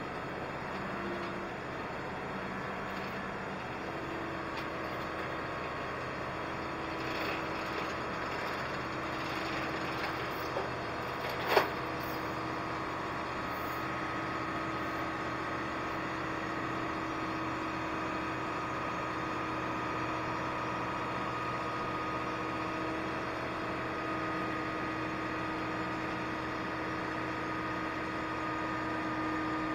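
Hydraulic mobile crane's diesel engine running steadily under load, with a faint whine from the hydraulics as the boom moves. There is one sharp knock about eleven seconds in.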